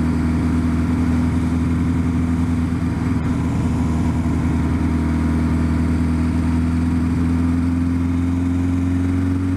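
Kawasaki Concours 1000's inline-four engine running steadily while the bike rides along at town speed, its pitch creeping slowly up over the last few seconds as it picks up speed.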